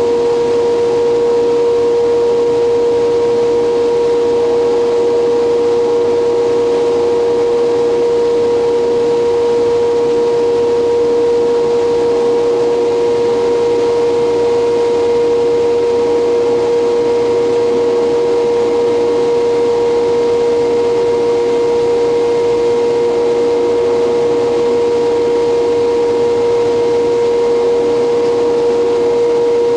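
Hydraulic copy lathe machinery running at a constant pitch, a steady drone with a strong whine, idling without cutting while bat blanks are swapped.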